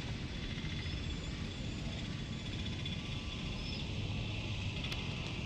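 Steady outdoor ambience: a constant high buzz and a low rumble, with a few faint short chirps.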